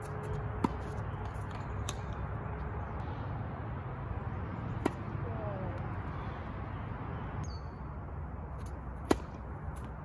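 Tennis rackets striking the ball on an outdoor hard court: three sharp pops, about a second in, near five seconds, and the loudest near nine seconds, over a steady low background rumble.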